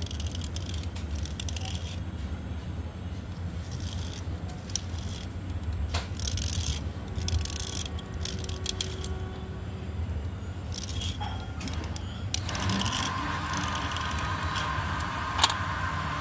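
Small metal blade scraping a wet slate pencil in short, uneven strokes, with shavings dropping onto a steel plate. A steady low hum runs underneath, and there is one sharp click near the end.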